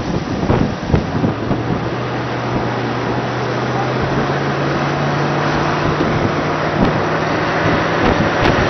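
Strong storm wind blowing across the microphone, with a steady low hum that starts about a second in and stops near the end.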